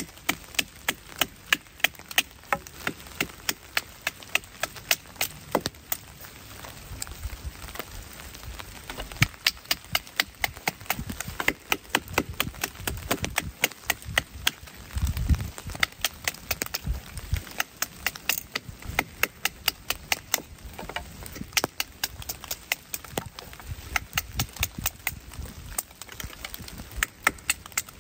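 Kindling being split by batoning: a wooden baton knocking repeatedly on a blade driven down through small sticks, with sharp wooden knocks at about two to three a second and the odd crack of wood splitting.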